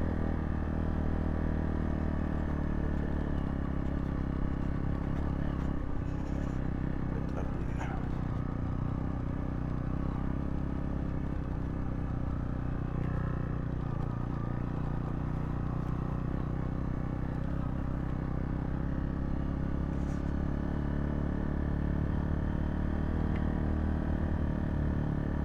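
Single-cylinder engine of a Zontes T2 350 motorcycle running at a steady low pace on a dirt trail, with a few light knocks and clatters from the bike over rough ground.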